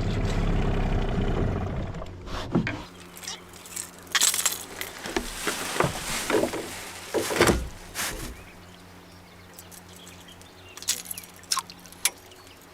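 A boat motor runs steadily while trolling, then stops about two and a half seconds in. After that come scattered clicks and knocks of fishing gear being handled in the boat, over a faint steady hum.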